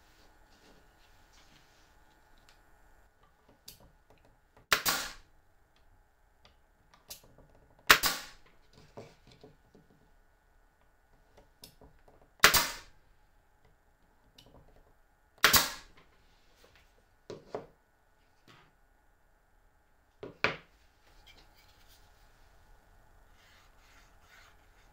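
Nail gun firing nails into plywood joints: four loud, sharp shots a few seconds apart, then a softer fifth, with small knocks of the wood being handled in between.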